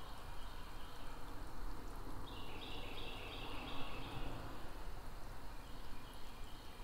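Faint outdoor ambience: a steady hiss, with a high-pitched animal call repeated about three times a second for a couple of seconds in the middle.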